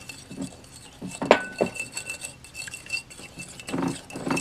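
A utensil stirring glue and water in a container, scraping and clinking against its sides. There is one sharper, ringing clink about a second in and more clatter near the end.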